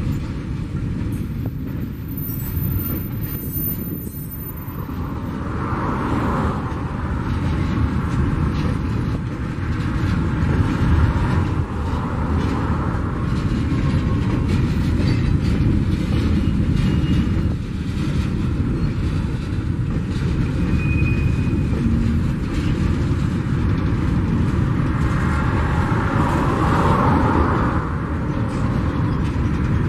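A long train of covered hopper wagons rolling slowly past, a steady rumble of wheels on rail with scattered knocks from the wheels crossing rail joints.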